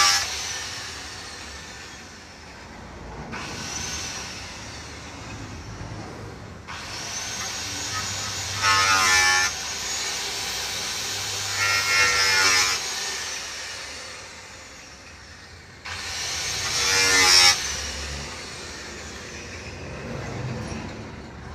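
A small electric power tool cutting through a car's sheet-metal bonnet, in short passes. The motor whine starts and stops several times, and it gets loud and harsh about 9, 12 and 17 seconds in.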